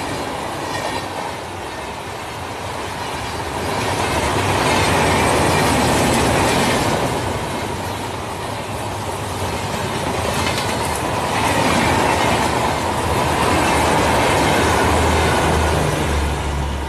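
Rajdhani Express LHB coaches running through the station at full speed: a continuous rush of wheel and rail noise with clickety-clack over the rail joints. It swells louder twice as the coaches go by, with a low rumble building near the end.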